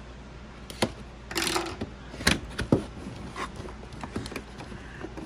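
Cardboard doll packaging being handled and pried open: scattered clicks and scrapes, with a short rustling scrape about one and a half seconds in.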